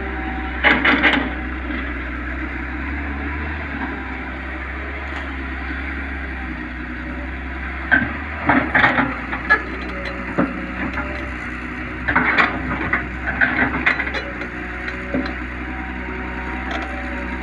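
Tata Hitachi excavator's diesel engine running steadily, with three bouts of crunching and scraping as the bucket digs into soil and roots: about a second in, around eight to nine seconds in, and again around twelve to fourteen seconds in.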